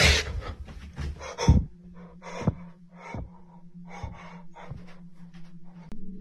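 A person breathing heavily in short, irregular breaths, with soft thumps in between, over a steady low hum.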